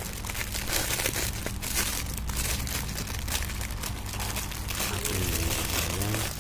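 Acoustic-electric guitar strummed with a pick through a distortion pedal into a small speaker: each strum comes out as a broad, crackly noise, over a steady low electrical hum from the amplified rig.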